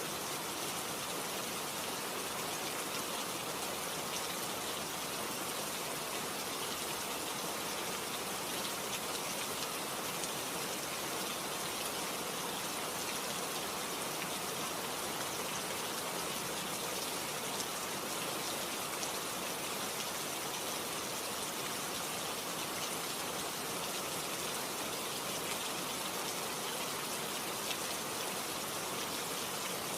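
Steady rainfall, an even hiss of many drops with no thunder or distinct splashes.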